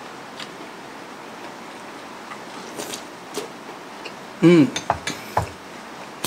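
Close-up eating sounds: a man chewing a mouthful of kwek-kwek (battered quail eggs), with light clicks of a glass sauce bowl and bamboo skewer, and a short hummed "mmm" about four and a half seconds in.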